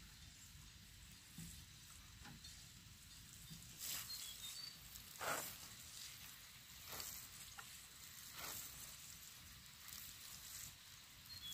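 Water from a plastic watering can sprinkling onto dry soil in about six short, faint hissing spurts, a second or two apart.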